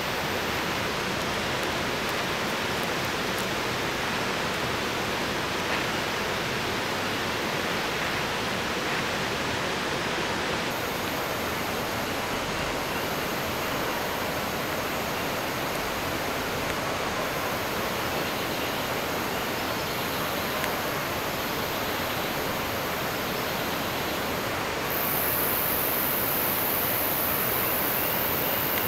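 Steady rushing hiss of outdoor background noise. A high, thin whine comes and goes from about eleven seconds in and is loudest near the end.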